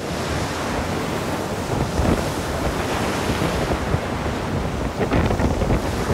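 Storm wind buffeting the microphone over the rush of breaking seas and water surging past a sailing yacht's hull as it runs downwind, with louder surges about two seconds in and again near five seconds.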